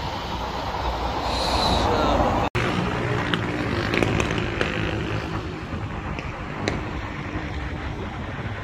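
Steady noise of road traffic. The sound drops out for an instant about two and a half seconds in, then carries on.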